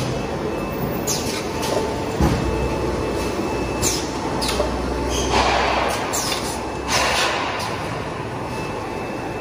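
Paper cutlery molding machine running: a steady mechanical noise broken several times by short hisses, with a thump about two seconds in.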